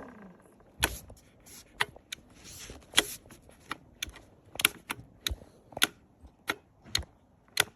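About a dozen sharp clicks at uneven intervals, with no motor running: the cordless lawnmower's switch being worked over and over while the motor fails to start.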